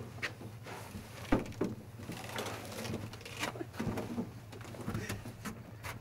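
Irregular knocks and bumps with rustling from people scuffling and clambering about in a pickup truck bed under a camper shell, the loudest knocks about a second and a half in.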